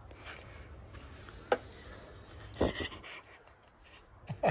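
A man laughing in short bursts, with a brief sharp sound about a second and a half in.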